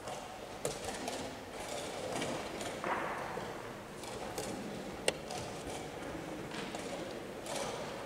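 Wooden chess pieces knocking on a wooden board during a blitz game, with one sharp click about five seconds in as a move is made, over the low murmur of a playing hall.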